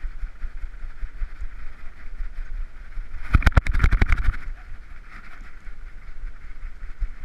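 Handling noise from a GoPro Hero3 in its housing strapped to a trotting dog's back harness: a steady muffled rumble and rubbing, broken about three seconds in by a quick run of sharp rattling knocks as the dog twists its body and jolts the camera.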